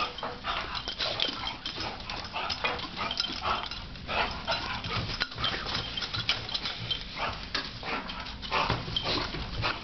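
A Rhodesian Ridgeback and a bulldog play-wrestling: a continuous, irregular run of short dog noises and scuffles.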